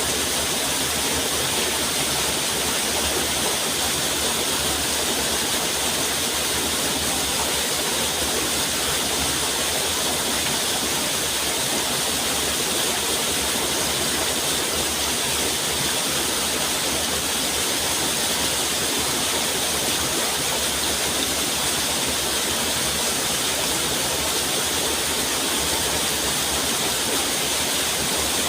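Flowing water rushing steadily, an even hiss-like wash with no change in level.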